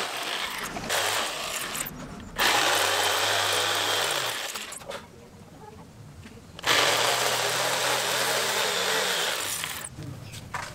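Handheld electric jigsaw sawing through a wooden board, in two loud stretches of two to three seconds with a quieter lull between, where the motor slows and picks up again. It stops near the end.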